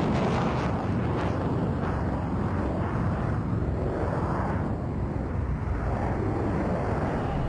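Twin jet engines of a MiG-29M OVT fighter flying its display: a loud, broad noise that is strongest at the start, then eases a little and swells and fades in waves.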